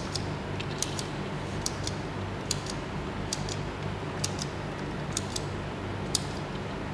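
Hand-held chrome tally counter clicking about once a second over a low steady hum, each click counting one opening of a tilapia's gill cover.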